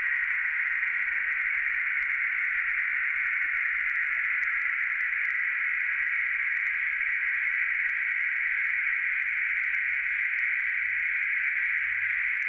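Steady, unbroken high-pitched insect chorus that holds one even pitch and level throughout.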